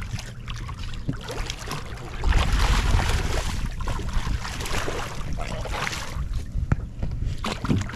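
Water splashing as a small hooked sturgeon thrashes at the surface beside the boat, with wind rumbling on the microphone. The splashing and rumble are loudest about two to three and a half seconds in, and a couple of sharp clicks come near the end.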